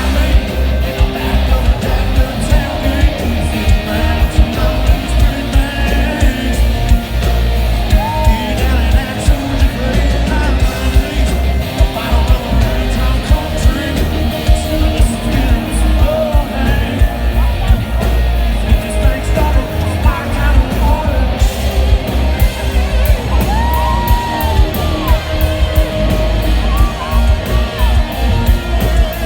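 Live country-rock concert music, loud, with electric guitars, a heavy steady kick-drum beat and singing.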